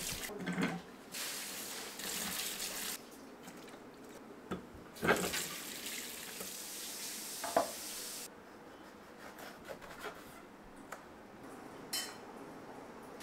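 Kitchen tap running in two short spells as vegetables are rinsed under it, with a few clinks and knocks of a steel bowl and colander in between.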